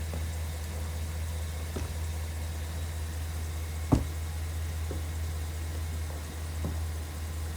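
Car engine idling with a steady low hum, with a few scattered knocks over it, the loudest about four seconds in.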